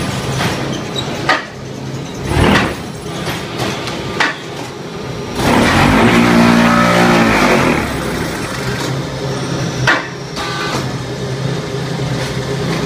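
QT5-15 automatic concrete block-making machine running: a steady machine hum with several sharp clanks. About five seconds in comes a loud buzzing stretch of about two seconds that drops in pitch as it stops.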